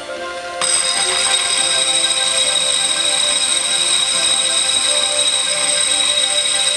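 Variable-speed angle grinder with a diamond cup wheel comes on abruptly about half a second in and runs with a loud, steady high whine. It is grinding down the rough top edge of a concrete planter.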